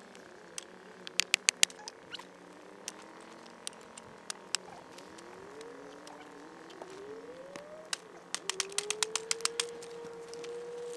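Tobacco-plant stalks burning down to charcoal in a leaf-covered pit, the fire crackling with sharp pops and snaps that come in quick clusters about a second in and again in the second half. A faint whistling tone rises twice and then holds steady toward the end.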